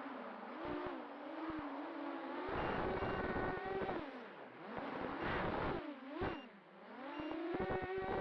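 250-size FPV racing quadcopter's brushless motors and propellers whining, the pitch rising and falling as the throttle is worked, with a couple of brief dips where the throttle drops off.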